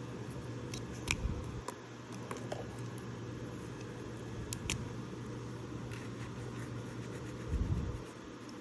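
Steady low hum of room noise with a few light clicks and two soft knocks, about a second in and near the end, from objects being handled.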